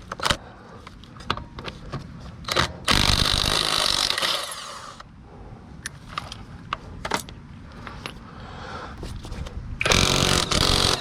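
Impact wrench hammering in two bursts, the first about two seconds long, the second starting near the end, loosening the front wheel's lug nuts. Scattered clicks and knocks come in between.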